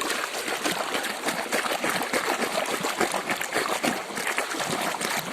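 Water running and splashing steadily as a mud-covered toy car is washed clean.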